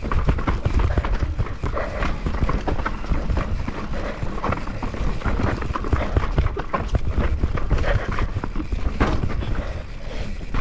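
Mountain bike rattling down a rocky stone-slab trail: a fast, irregular clatter of knocks from the tyres and frame hitting the rocks, over a steady low rumble.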